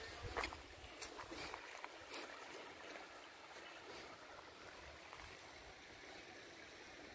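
Faint, steady rush of a shallow stream, with a few light clicks in the first couple of seconds.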